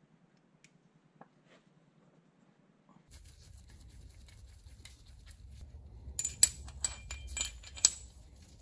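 Steel parts of a brake caliper wind-back tool clinking and tapping against each other and the caliper, a run of sharp ringing metallic clicks over about two seconds near the end, over a low steady hum. Before that come a few faint small clicks of the tool pieces being handled.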